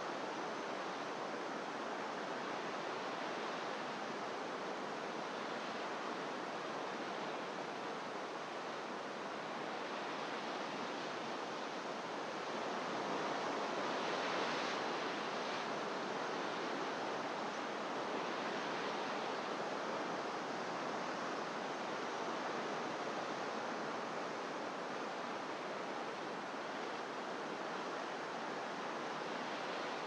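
Pacific surf breaking on rocks far below, heard as a steady distant wash of sea noise that swells slightly about halfway through.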